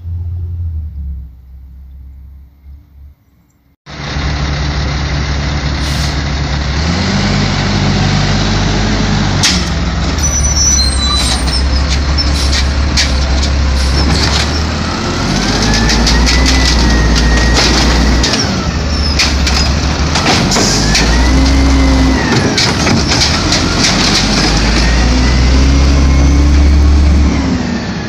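Automated side-loader garbage truck working at the curb. Its diesel engine revs up, holds and drops back several times as it cycles through cart pickups, with sharp knocks and clatter among the carts. The truck sound sets in suddenly about four seconds in, after a quieter start.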